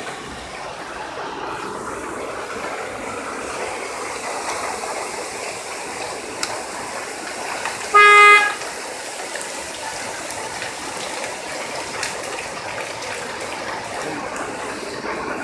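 Steady hiss of heavy rain and running water, broken about halfway through by one car horn blast lasting about half a second.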